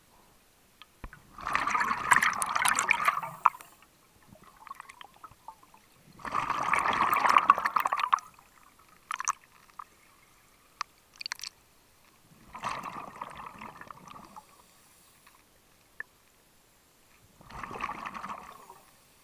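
Scuba diver exhaling through a regulator underwater: four gurgling rushes of bubbles, each lasting one to two seconds and about five seconds apart, in a steady breathing rhythm, with small clicks between breaths.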